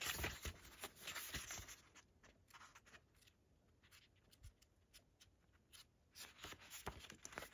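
Faint rustling and soft clicks of a paper booklet being handled and its pages turned, with quiet gaps between.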